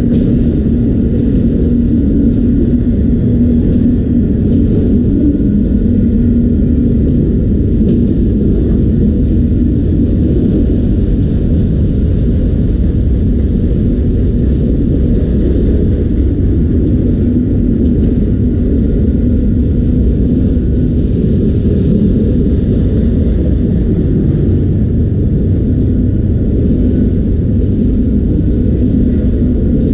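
Autorack freight train rolling past, a loud, steady low rumble of wheels on rails that keeps an even level throughout.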